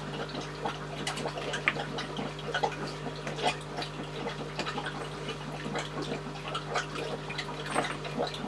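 Water from a pump-fed hose trickling and splashing into a plastic bowl held in an aquarium, refilling the tank without stirring up the new substrate. A steady low hum runs underneath.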